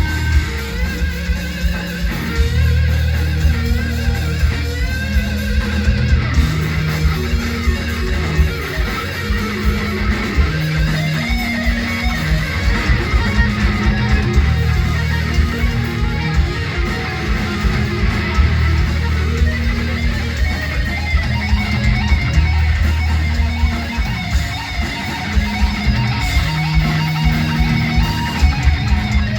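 Heavy metal music: an electric guitar solo with bending lead notes over a repeating bass line and fast drumming.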